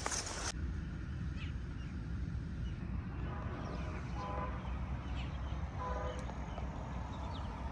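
Outdoor ambience: a steady low rumble, with three short, distant honks near the middle and a few faint bird chirps.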